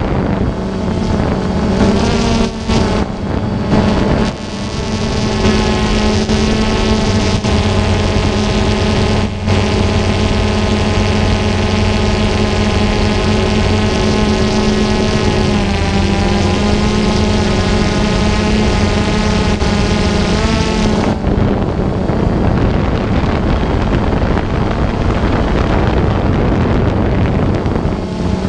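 Multirotor drone's motors and propellers humming steadily over wind noise, the pitch shifting a few times as the drone changes speed.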